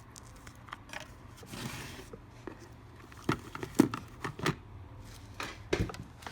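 Small, sharp clicks and taps of repair tools and fingers handling the iPhone's internal parts and flex cable, with a brief scrape early on and a few louder knocks in the middle and near the end.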